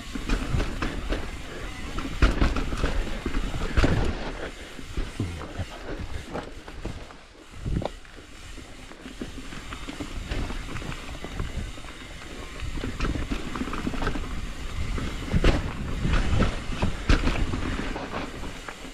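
Hardtail mountain bike rattling down rough dirt singletrack: tyre roar with irregular knocks and clatter from the bike going over roots and bumps, easing into a smoother, quieter stretch in the middle before getting rough again.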